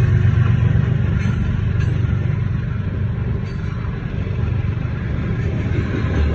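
CSX freight train's covered hopper cars rolling past, a steady low rumble of wheels on the rails.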